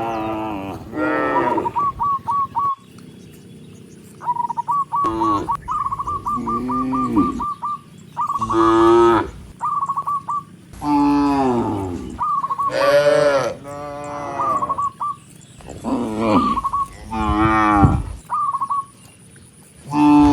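Cattle mooing over and over, about nine long moos from several cows in turn, some rising and falling in pitch. Short, quick runs of high chirps sound in the gaps between the moos.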